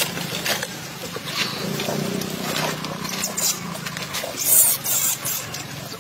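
Newborn macaque squeaking and crying in short high-pitched bursts, loudest about four and a half seconds in, over a steady low hum.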